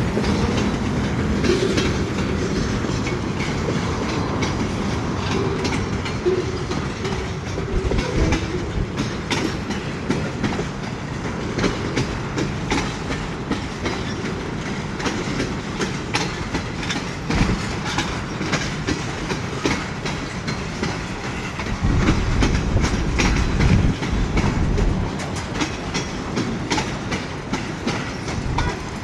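Canadian National freight train's cars rolling past, with a steady rumble and a constant stream of wheel clicks and clatter over the rail joints. The sound swells louder for a few seconds near the end.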